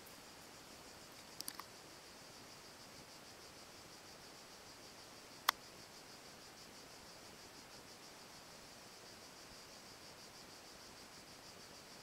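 Steady, high-pitched chirring of insects with a fast pulsing rhythm. A few faint ticks come about a second and a half in, and a single sharp click a little past halfway.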